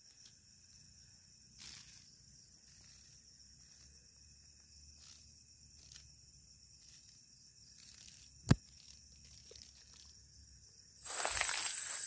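Faint, steady high-pitched chirring of night insects, broken by a light rustle early and one sharp click about two-thirds of the way through. Near the end a much louder insect chorus with some rustling starts abruptly.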